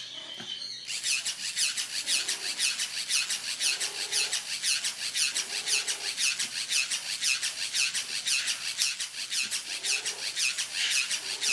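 Battery-powered Moto Mister sprayer spraying water mist. It starts about a second in and runs as a fast, even pulsing hiss, several pulses a second.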